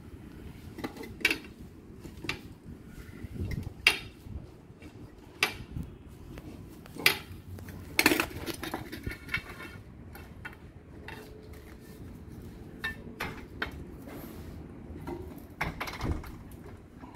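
Scattered sharp clinks and knocks of tools and hard pipe parts being handled during plumbing work on a water pipe, with the loudest knock about halfway through.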